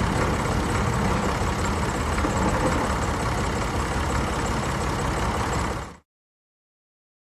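Tractor engine running steadily at idle, cutting off abruptly about six seconds in.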